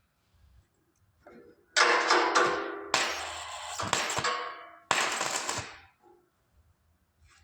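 Metal struck three times, each a sharp metallic clang that rings on briefly before dying away.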